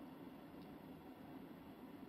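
Near silence: faint steady room tone with a light hiss.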